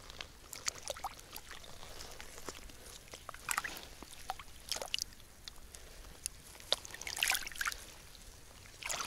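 Shallow lake water splashing and trickling in short, irregular bursts as a hand-held pike is lowered into it and released among the reeds. The loudest splashes come about three and a half, five and seven seconds in.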